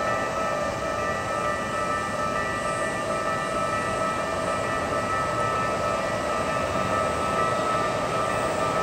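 Japanese level-crossing warning bell ringing continuously while a Hokuso 7500 series train runs through the crossing with a steady rumble of wheels on rail.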